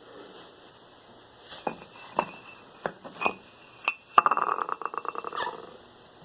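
Hard objects clinking and knocking: five separate sharp strikes, then a fast rattling run of ticks, about a dozen a second, for just over a second.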